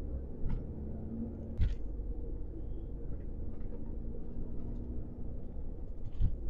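Truck engine running steadily, heard inside the cab while driving: a low rumble, with short knocks about half a second and a second and a half in.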